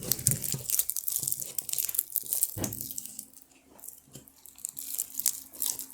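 Elmer's butter slime being stretched and squished by hand, giving quick sticky crackles and tearing sounds, densest in the first few seconds, with a quieter stretch midway.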